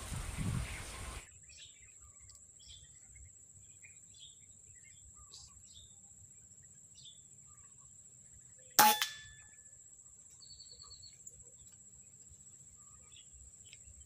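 A single sharp air rifle shot about nine seconds in, with a short ringing tail. Under it are a faint steady high-pitched whine and scattered soft bird chirps.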